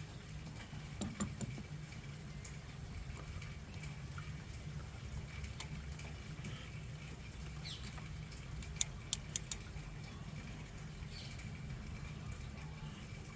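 Faint clicks and clinks of hand tools on metal, with a quick run of four sharp clicks about nine seconds in, over a steady low hum.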